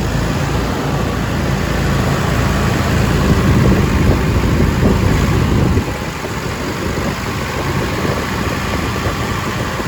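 A car engine running steadily with the air conditioning on. It grows somewhat louder for a few seconds and then drops back about six seconds in.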